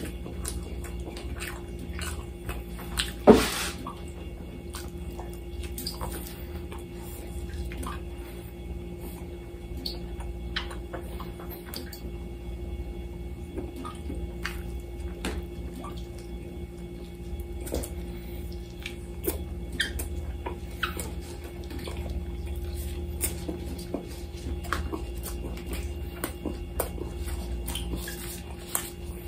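Close-miked eating: wet chewing and lip smacking of lamb chops and rice eaten by gloved hand, with many small clicks and ticks, over a steady low hum. About three seconds in, one loud short rising squeak-like sound stands out.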